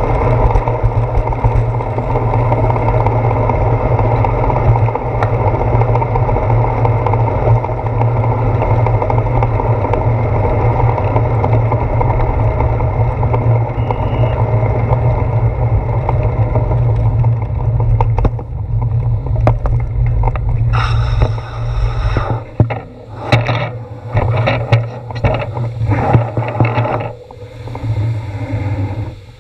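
Wind buffeting and road rumble on a handlebar-mounted camera while a bicycle rides over wet pavement: a loud, steady low rumble for most of the time. About two-thirds of the way through, as the bike slows, it breaks up into uneven gusts and swishes.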